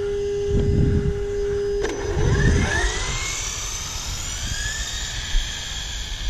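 Traxxas Slash 4x4 RC truck on a 3S LiPo launching from a standstill: a steady tone cuts off about two seconds in, then the brushless motor whines higher and higher as the truck speeds away and fades with distance.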